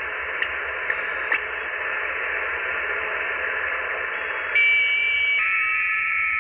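Icom IC-706MkIIG shortwave transceiver's receiver hiss on the 15-meter band, with small clicks about twice a second at the start. About four and a half seconds in, FT8 digital signals come in: several steady tones together, louder than the hiss.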